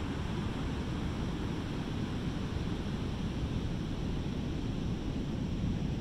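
Pacific Ocean surf breaking along a sandy beach: a steady, even rumble of many waves with no single crash standing out, mixed with wind on the microphone.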